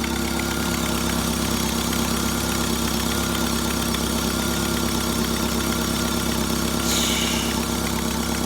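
Jeep engine idling steadily just after a cold start in sub-zero temperatures without a block heater, with a light squeal that comes from the cold. A brief hiss about seven seconds in.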